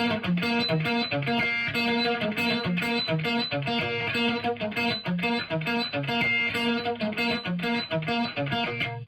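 Electric guitar played through a Marshall AFD100 amp in #34 mode, boosted by a Solo Dallas replica pedal: a fast run of picked single notes repeating a short riff.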